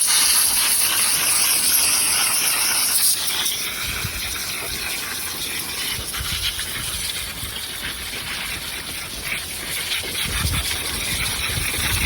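Water rushing with a steady hiss, loudest for about the first three seconds and then dropping off suddenly, with a few low rumbles later.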